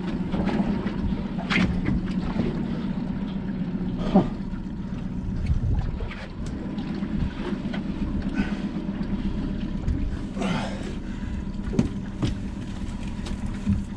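Outboard motor idling with a steady hum, over wind buffeting the microphone. Scattered knocks and rustles come through as fishing gear is handled on the aluminium boat's deck.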